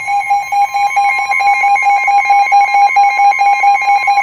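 Emergency Alert System attention signal: the steady two-tone 853 Hz and 960 Hz alert tone, sounded loud and continuous to open a severe thunderstorm warning.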